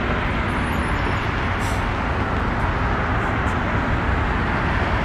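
Steady outdoor background rumble and hiss, even and unbroken, with no distinct event standing out.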